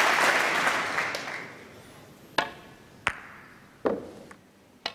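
Audience applause dying away, followed by four sharp single clicks spaced about three-quarters of a second to a second apart.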